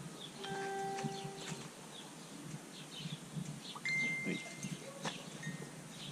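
Faint ringing of livestock bells from a nearby flock: a few clear held tones, one low and long soon after the start and a higher one about four seconds in, with birds chirping.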